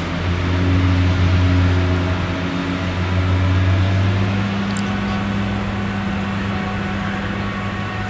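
Claas Jaguar 970 forage harvester running under load, chopping maize: a steady deep engine drone over the constant rush of the chopper and crop blower. The engine's tone shifts about four seconds in.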